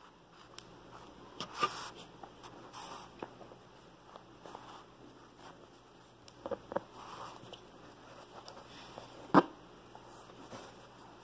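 Soft rustling and scraping of yarn and a sewing needle being drawn through a crocheted amigurumi head as hands grip and pull it, with a few light clicks. The sharpest click comes about nine seconds in.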